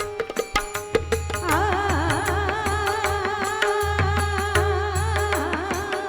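Tabla and pakhawaj drumming under a steady held drone note, with a voice coming in about a second and a half in and singing a wavering, ornamented melody.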